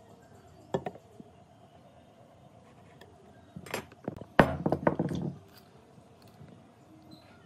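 Metal clinks and knocks of hand tools on a wooden workbench as a metal speed square is set down and a tape measure is picked up and pulled out. The sounds come in a short burst from about three and a half to five seconds in, with the loudest knock near four and a half seconds.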